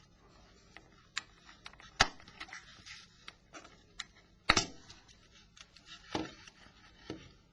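Scattered sharp plastic clicks and snaps of a Nokia 3650's front (A) cover being unlocked and pried away from the back (B) cover, the loudest snaps about two and four and a half seconds in.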